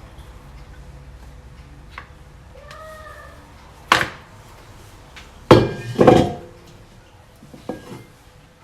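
Kitchenware knocking on a counter: three sharp knocks, one about four seconds in and two close together around five and a half to six seconds, the later two ringing briefly. A faint short squeak comes before them.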